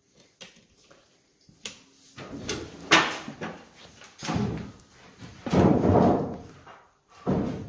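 Footsteps, knocks and scuffs of someone climbing a metal stepladder with wooden treads, an uneven series of thumps with a sharp knock about three seconds in and a longer scuffing stretch near the end.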